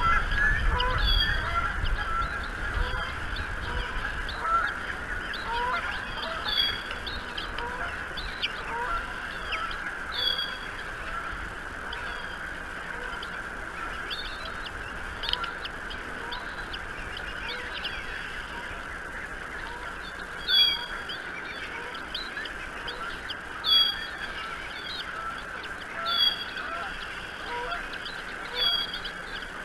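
Geese honking repeatedly in the background. Sharp, high-pitched bird chirps recur every few seconds over the honking and are loudest in the second half.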